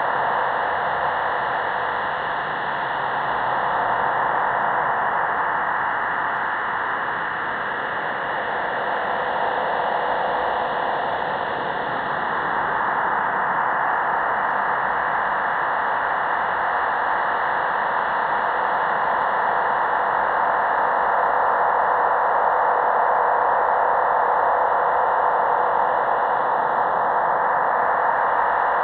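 Shortwave radio receiver on 15105 kHz USB playing a steady hiss-like whooshing signal that slowly swells and fades over several seconds, with a faint steady tone underneath.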